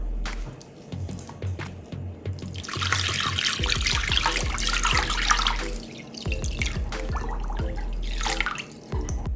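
Water poured from a glass jug into a glass bowl over a beef tongue, splashing for about three seconds, then a shorter pour near the end, over background music with a steady beat.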